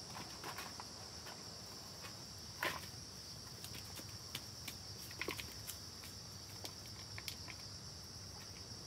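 Steady high-pitched insect chorus, with scattered light clicks and knocks over it; the sharpest knock comes nearly three seconds in.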